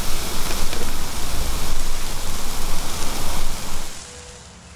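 Raw meat sizzling on an asado grill: a loud, steady hiss with small scattered crackles, cutting off sharply about four seconds in.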